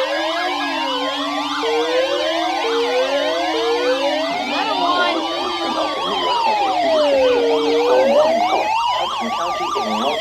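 Many sirens sounding at once, layered over each other: a slow wail rising and falling about every four seconds over a dense mesh of faster yelping glides, with a steady tone held through the first half.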